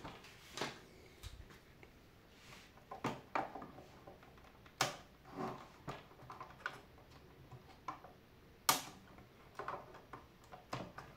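Cable ties holding the wiring being snipped, with scattered sharp clicks and snaps among light handling of wires and plastic housing; the loudest snap comes about nine seconds in.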